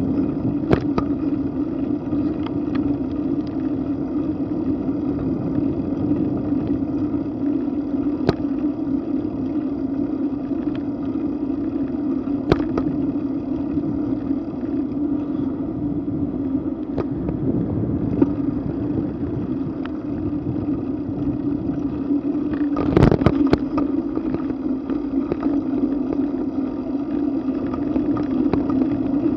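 Bicycle riding noise on a mounted camera: a steady hum of tyres rolling on pavement and wind, with occasional sharp knocks from bumps and a cluster of jolts about three quarters of the way through.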